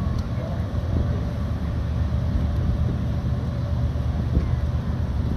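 Steady low rumble of a paddlewheel riverboat's engine as the boat cruises past.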